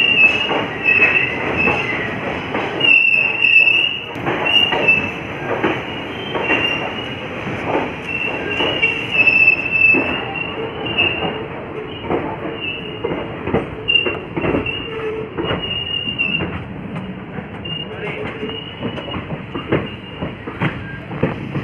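Passenger train pulling out at low speed, heard from the open coach door: steel wheels squeal against the rails in short, high, repeated squeals over a steady rattle. Sharp clanks and knocks from the coaches and the wheels running over rail joints and points come through the squealing.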